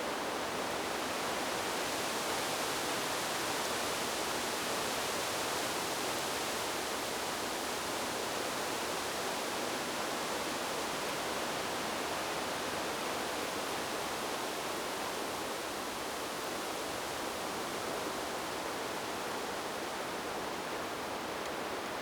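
Wind blowing through leaves: a steady, even rushing hiss that swells slightly a few seconds in.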